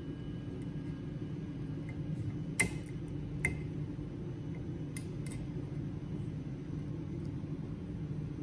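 Sharp metallic clicks from a circlip being fitted with circlip pliers onto a gearbox bearing: one loud click about two and a half seconds in, a second just under a second later, and two faint ones around five seconds in, over a steady low hum.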